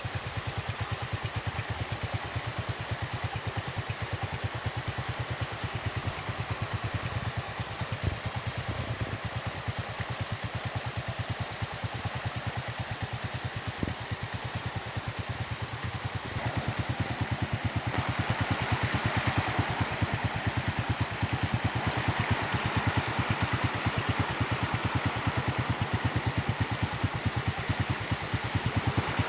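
An engine running steadily with a fast, even pulse. About two-thirds of the way through, a louder rushing hiss joins it.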